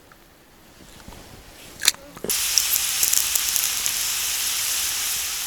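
Food going into hot oil in a pan over a campfire: a light knock, then about two seconds in a sudden loud sizzle with fine crackling that carries on steadily.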